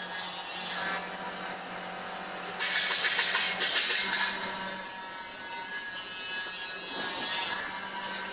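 Hand tools working the bolts of a thresher's steel stand: metal scraping and turning, with a louder noisy burst about three seconds in that lasts about a second, over a steady low hum.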